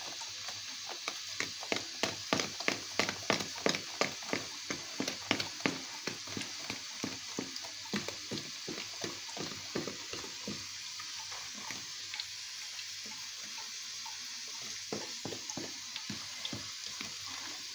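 Wire whisk beating cake batter in a plastic bowl, the wires tapping against the bowl in a quick rhythm of about three strokes a second. The strokes thin out and soften about twelve seconds in, then pick up again near the end.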